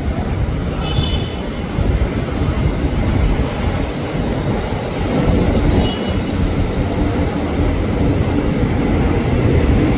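A former Tokyo Metro 6000-series electric commuter train approaches and pulls into the station. Its low rumble grows louder as it nears, with two brief high squeals, one about a second in and one near the middle.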